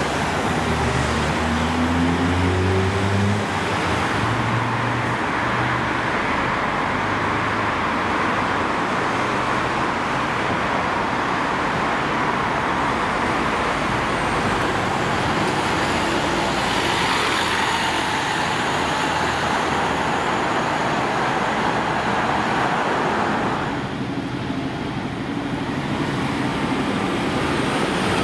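City buses moving through traffic. In the first few seconds a bus engine rises in pitch as it accelerates away, and steady road traffic noise follows.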